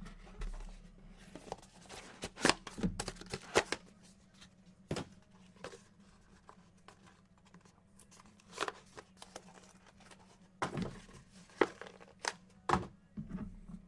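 Cardboard trading-card box packaging being handled and opened: irregular sharp rustles, tearing and clicks of cardboard in several short clusters.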